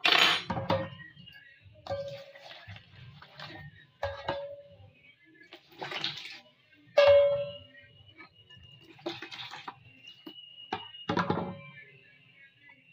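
Water poured from a plastic container into a plastic mixing bowl of flour, in several splashes, with sharp knocks of the container and utensils against the bowl.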